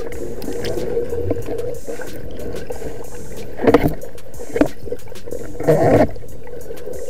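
Underwater water noise heard through an action camera's housing as a diver swims: a steady muffled wash with a faint hum, broken by three short gurgling bursts of water movement about halfway through.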